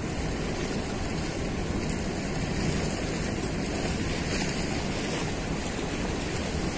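Steady rushing of a fast river current released below a dam's gates: an even noise with no single events.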